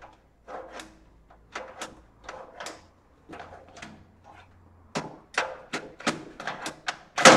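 CD/DVD optical drive being slid into the metal drive bay of an HP 8200 Elite desktop tower: a run of irregular scrapes, clicks and knocks of the drive against the cage, ending near the end with one loud sharp clack as the drive goes home.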